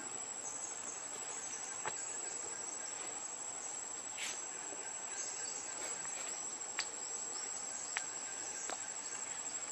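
Insects calling in a steady, high-pitched drone, with a few short sharp sounds scattered through it.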